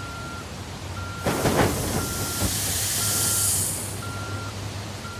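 An electronic warning alarm beeping steadily about once a second, like a reversing alarm, over a low mechanical hum. From about one second in, a loud rushing hiss with a few knocks rises over it and fades by about three and a half seconds.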